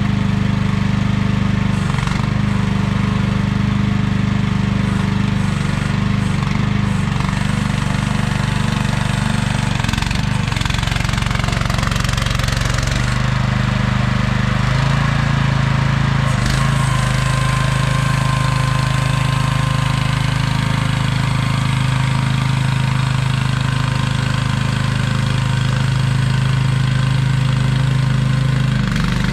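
AGT QH12R mini excavator's small engine running steadily as the machine is operated. Its note shifts about halfway through, with a couple of brief knocks.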